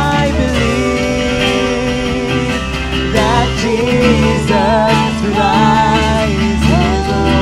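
Praise-and-worship band music: a wavering lead melody over guitar and a steady bass and chord backing.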